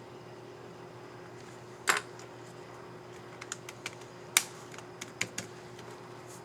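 Asus ZenBook UX301L laptop keys clicking as they are pressed: one sharp click about two seconds in, then a quick uneven run of lighter clicks with one louder snap among them. This is typical of a reinstalled keycap being seated on its scissor mechanism and tested.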